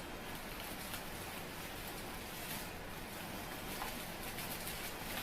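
Bubble wrap packaging rustling and crinkling with scattered soft crackles as it is unwound by hand from a product.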